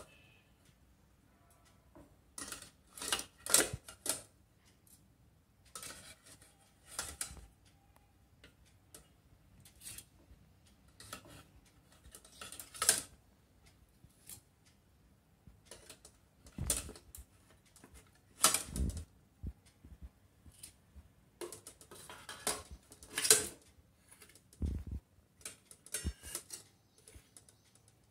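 Stainless steel steamer plates clinking and knocking against the metal frame of a multi-tier steamer stand as they are stacked onto it, in irregular short clatters with quiet gaps between.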